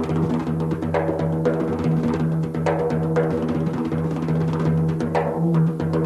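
Large Remo frame drum played with the bare hands: a quick, continuous run of finger and palm strokes on the head over the drum's deep, sustained ringing tone.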